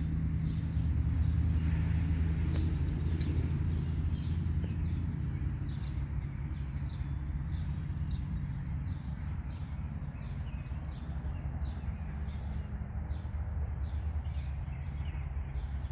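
Low steady hum of a distant motor that eases off slightly after a few seconds, with small birds chirping in short, quick repeated notes from about six seconds in.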